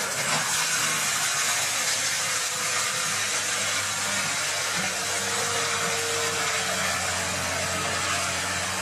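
Tractor-mounted forestry mulcher at work: its rotor drum grinds into the ground and woody debris with a steady, dense hiss, over the steady running of the tractor's diesel engine.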